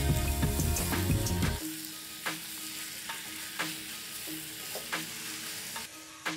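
Chicken pieces and shallots sizzling in a nonstick pan while a silicone spatula stirs and scrapes through them, with scattered sharp scraping ticks. Background music plays over the first second and a half, and a steel lid clanks onto the pan at the very end.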